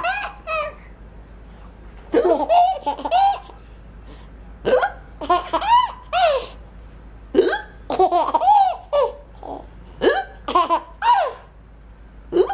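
A young child laughing with hiccups: clusters of short, high-pitched squeals about every two and a half seconds.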